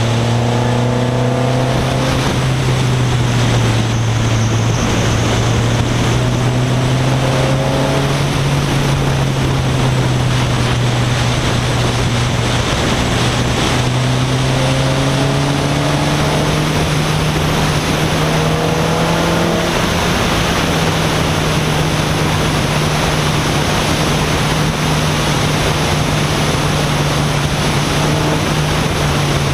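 1996 Acura Integra sedan's four-cylinder engine, breathing through a cold air intake and 2.5-inch exhaust, running at a steady drone that climbs slowly in pitch, with brief rising revs a few times. Heavy wind and road noise from the moving car runs under it.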